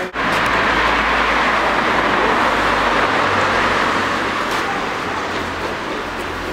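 Road traffic passing close by: a steady rushing noise with a low engine hum, loudest for the first few seconds and easing off a little toward the end.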